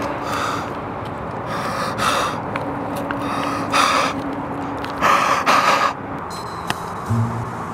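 A young woman gasping and panting heavily close to the microphone: a series of sharp, noisy breaths, the longest and loudest about five seconds in.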